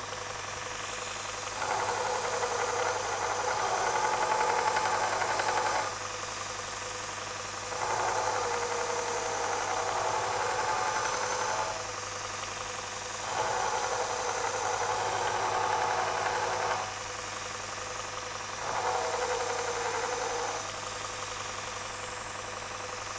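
Robert Sorby ProEdge belt linisher running with a steady motor hum, while a carving axe's bevel is ground against a finer-grit belt in four passes of a few seconds each, each pass adding a louder grinding rasp. This is the finishing stage, removing the scratches left by the coarse belt.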